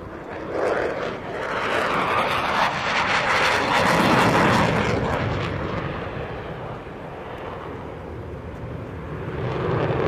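Aircraft passing overhead, its engine noise swelling to a peak about four seconds in and fading, then rising again near the end.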